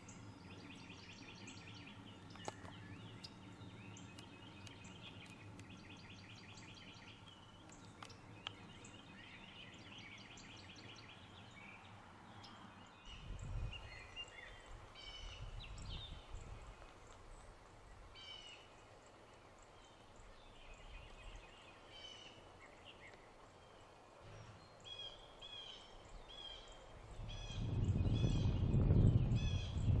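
Backyard birds calling and singing, many quick repeated chirps and trills overlapping. A low rumble on the microphone comes in about halfway through and is loudest near the end.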